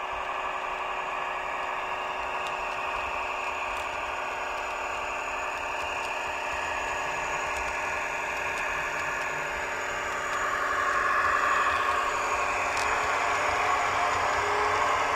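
Sound decoder of a Roco H0 model of the DB class 628.4 diesel railcar playing its diesel engine running sound through the model's small speaker. The sound grows louder and noisier about ten seconds in as the train draws close.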